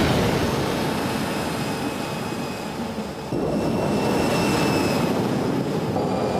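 Steady jet-like engine noise of an aircraft in flight, with a faint steady whine on top; it dips briefly about three seconds in.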